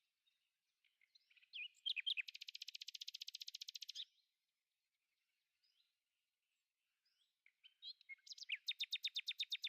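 A songbird singing two phrases, each a few slurred notes that run into a fast, even trill about two seconds long; the first ends suddenly about four seconds in, and the second starts near the end.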